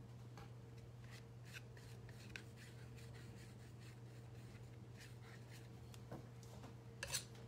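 Faint scraping of a palette knife spreading thick acrylic paint on sketchbook paper, in a series of short strokes.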